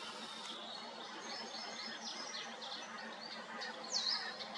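Small songbirds chirping and singing over a steady outdoor hiss, with a louder whistled call near the end.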